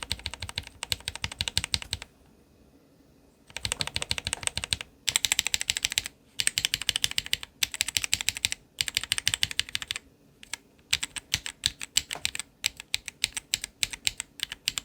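Mechanical keyboard switches being typed on, Akko Radiant Red, Akko Vintage White and Gateron Yellow linear switches, in a sound comparison. The key presses come in about eight quick runs of clacks, each a second or two long, with short pauses between them.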